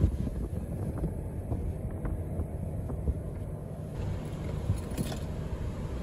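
Outdoor street ambience: a steady low rumble of wind buffeting the microphone and traffic, with a few faint ticks.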